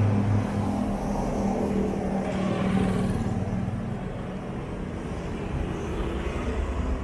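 Road traffic: cars passing with a steady rumble of engines and tyres.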